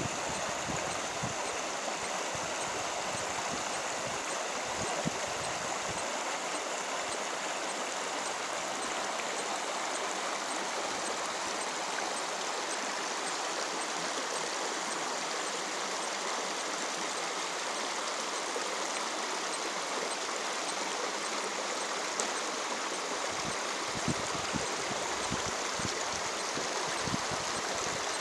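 Small forest brook rushing and babbling over stones as it pours into a pond, a steady, even rush of running water.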